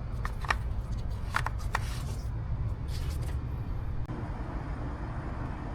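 A few light clicks and rustles in the first three seconds over a steady low rumble.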